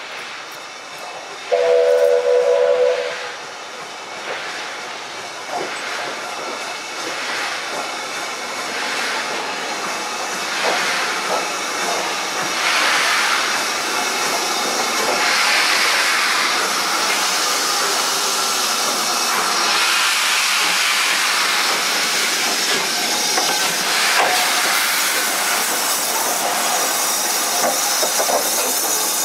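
A steam locomotive whistle sounds once, a short chord lasting about a second and a half. It is followed by a hiss of escaping steam that builds and then holds steady, close beside BR Standard Class 5 steam locomotive No. 73050.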